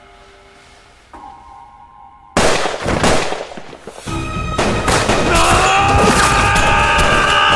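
Rapid gunfire sound effect breaking out suddenly a little over two seconds in, after a quiet held music chord, the shots coming thick and fast with a sustained music chord over them in the second half.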